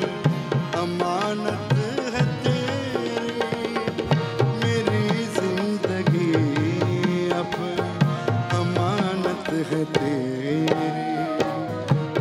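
Live Urdu song performance: a male voice singing a sliding, ornamented line over harmonium, acoustic guitar and percussion.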